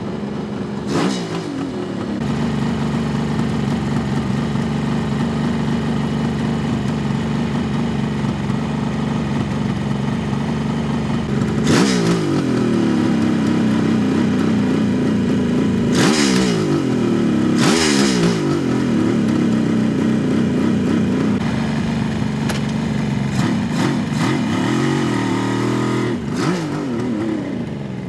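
1974 Kawasaki H2 Mach IV's 750 cc three-cylinder two-stroke engine idling, blipped sharply on the throttle about a second in, then three more times in the middle, and in a quicker run of smaller blips near the end. The revs fall back to idle after each blip.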